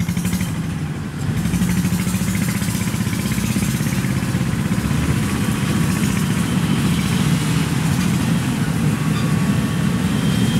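Kubota rice combine harvester's diesel engine running steadily as the machine moves through the field.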